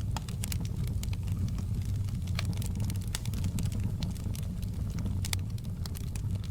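Wood fire burning in a fireplace, with irregular sharp crackles and pops over a steady low rumble.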